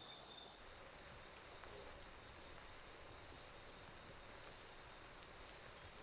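Faint forest ambience: a steady low hiss with a few brief, faint high bird chirps, and a thin high insect tone that stops about half a second in.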